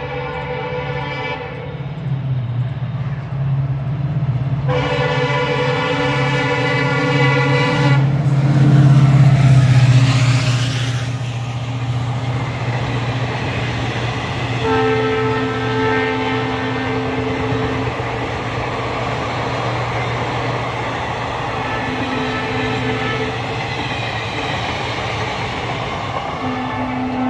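Locomotive hauling an express train sounds two horn blasts as it approaches, then passes loudest a few seconds later. Its passenger coaches follow with a steady rumble and wheel clatter, and a drawn-out tone comes and goes through the later part.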